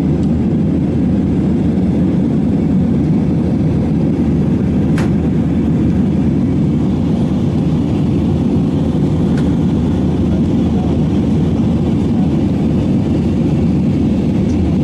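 Steady drone of jet engines and rushing air inside an airliner's cabin in flight, strongest in the low range.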